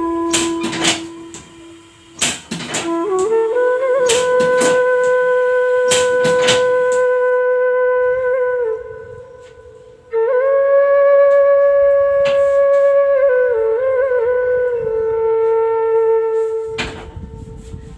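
Background music: a flute playing long held notes that slide from one pitch to the next, with short pauses between phrases and a few sharp taps.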